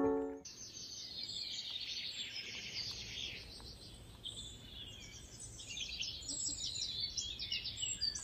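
Several small songbirds singing and chirping, many quick high trills and twitters overlapping, over a faint background hiss. A piano tune fades out in the first half second.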